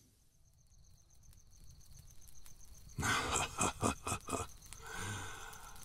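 Faint crickets chirping in an even pulse; about three seconds in, an old man's voice laughs in a run of quick bursts that trail off toward the end.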